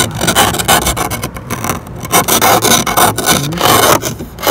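Plastic snow brush and ice scraper scraping ice off a car windshield in quick repeated strokes, plastic grating over frozen glass.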